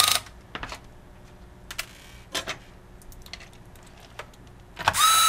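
Corded electric screwdriver driving in the small mounting screws of a laptop video card: a short motor whine that ends just after the start and runs again for about half a second near the end, rising in pitch as it spins up. Small clicks and taps of the screwdriver bit and screws on the laptop board come in between.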